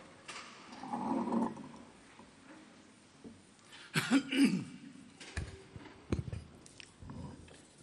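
A congregation settling into their seats in a large hall: clothing rustle and shuffling about a second in, a short cough or murmur around four seconds, then a few low knocks of chairs or feet.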